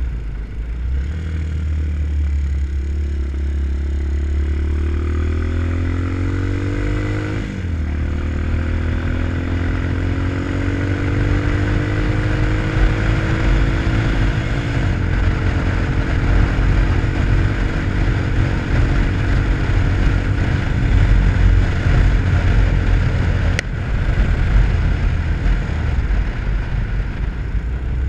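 Single-cylinder engine of an RPS Hawk 250 dual-sport motorcycle accelerating through the gears. The engine note rises, drops at a gear change about 7.5 s in, rises again, drops at a second shift about 15 s in, then holds steady at cruising speed. A heavy low wind rumble on the microphone runs underneath.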